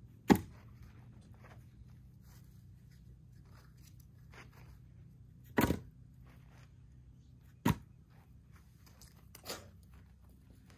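Split firewood pieces knocking onto a woodpile as they are stacked: four sharp wooden knocks, the first the loudest and the last the weakest, with small scuffs and clicks between.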